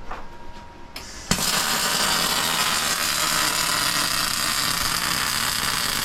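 Electric welding arc tacking a steel brace in place: a loud, steady crackling hiss that starts abruptly a second or so in, runs for about five seconds and cuts off suddenly.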